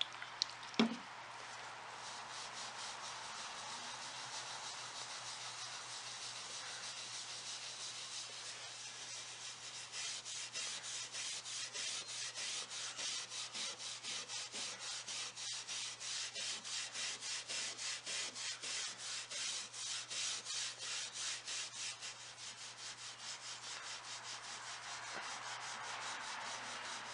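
0000 steel wool pad scrubbing a lacquered wooden tabletop wet with acetone: a steady scratchy rubbing that settles into quick even back-and-forth strokes, about four a second, through the middle stretch, as the acetone dissolves the lacquer finish. A couple of short knocks sound about a second in.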